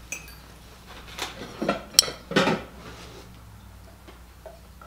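Ceramic plates and dishes clinking and knocking as they are handled and set down on a table, with a sharp clink about two seconds in.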